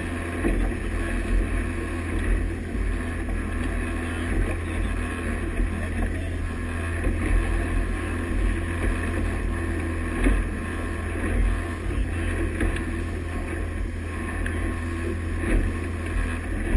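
Motorboat's engine running steadily under way, with the rush of water from its wake and wind rumbling on the microphone.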